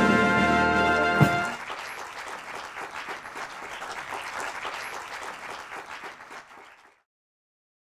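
Big band of saxophones, brass, drums and keyboard holding a final chord that ends on one accented hit about a second in. Audience applause follows and fades away over the next few seconds.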